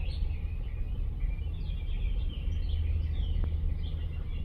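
Small birds chirping repeatedly over a loud, choppy low rumble of wind on the microphone.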